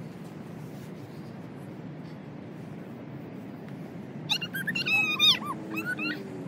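A child's high-pitched squeals and shrieks in play, starting about four seconds in and loudest a second later, over a steady low background rumble.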